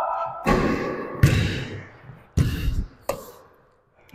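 Basketball bouncing on the court, four bounces at uneven spacing, each with a short ringing tail.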